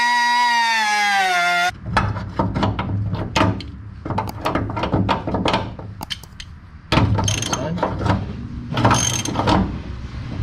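A small cordless cutoff tool whines as its wheel grinds slots into a steel bolt, its pitch sagging under load, and cuts off about two seconds in. Then a ratchet wrench clicks in runs as the slotted bolt is turned up into the car body's threaded insert, cutting as it goes to chase the damaged threads.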